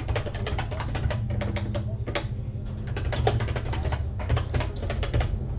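Typing on a computer keyboard: quick runs of key clicks with short pauses between them, over a low steady hum.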